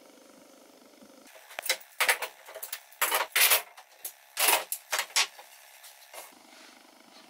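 Steel bar clamps being taken off a glue-up and dropped onto a pile on the workbench: a run of sharp metal-on-metal clanks and clatters lasting about five seconds, starting a little over a second in.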